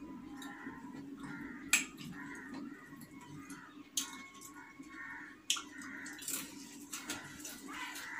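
Eating noises from a man eating rice with his hand: chewing and mouth smacks, plus sharp clicks about two, four and five and a half seconds in, the first the loudest. A steady low hum runs underneath.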